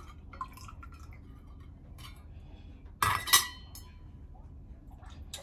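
Chicken broth dripping faintly through a stainless steel canning funnel into a glass quart jar. About three seconds in, the funnel clinks and rings against the jar's rim as it is lifted off.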